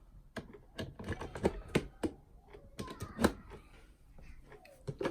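Irregular sharp plastic clicks and taps, about a dozen over a few seconds, from handling a wireless remote control and its plug-in switch socket.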